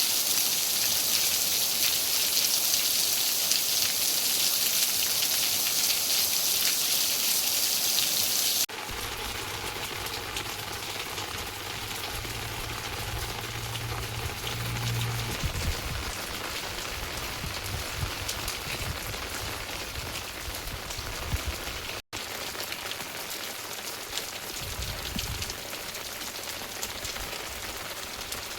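Steady rain falling, heavy and hissing at first, then cutting abruptly about a third of the way in to softer rain with a low rumble underneath. There is a momentary dropout about two-thirds of the way through.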